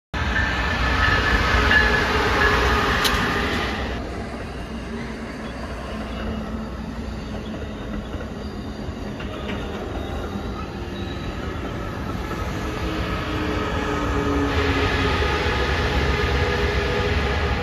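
Passenger train passing close by at speed: bilevel coaches rolling past with wheel and rail noise and a thin wheel squeal, loudest in the first few seconds. The sound grows louder again near the end as the Siemens Charger diesel locomotive at the rear comes by.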